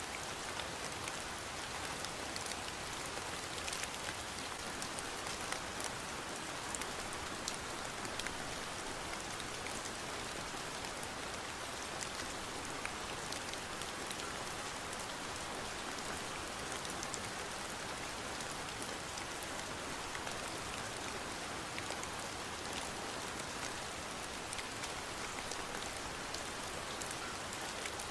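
Steady rain falling, an even hiss with many fine droplet patters and no change in intensity.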